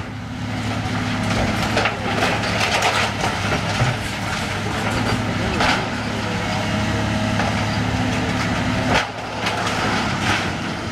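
Kobelco hydraulic excavator's diesel engine running steadily while its demolition claw tears into a building's roof, with repeated sharp cracks and splintering of breaking wood and sheathing.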